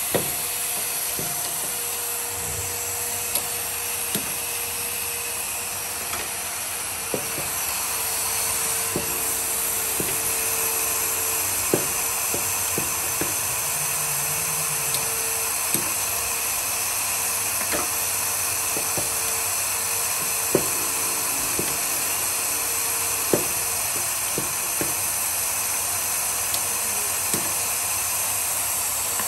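Automated pneumatic tip-cutting machine running: a steady hiss of air and machine noise, with sharp clicks every second or two from its actuators as it cycles.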